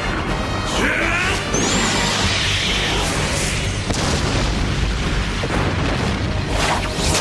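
Science-fiction battle sound effects: an energy-beam blast followed by booming explosions, layered over dramatic soundtrack music.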